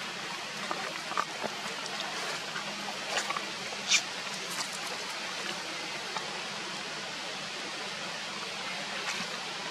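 Steady, even hiss of outdoor background noise, with a few short clicks; the sharpest click comes about four seconds in.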